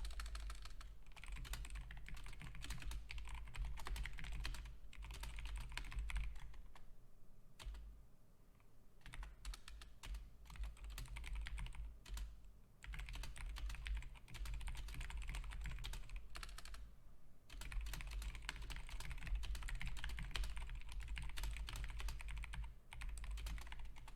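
Fast typing on a computer keyboard: a dense run of key clicks, broken by short pauses about a third of the way in and again about halfway through.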